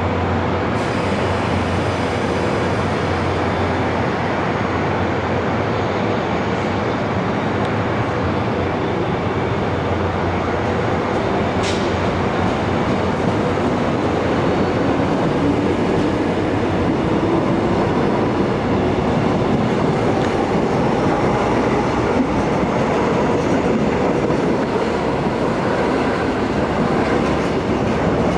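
Seoul Metro 1000-series rheostatic-controlled electric train pulling out and gathering speed past the platform, its running noise growing steadily louder, with a motor whine rising in pitch in the second half.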